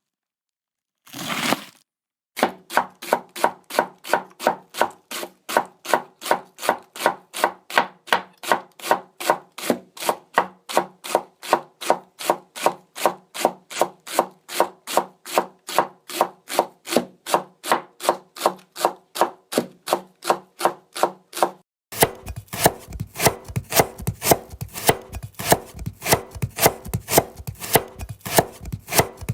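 Houchou kitchen knife chopping ingredients on a cutting board in steady, evenly spaced strokes, about three a second. About 22 seconds in, the chopping switches to a faster, denser rhythm with a heavier thud on each stroke.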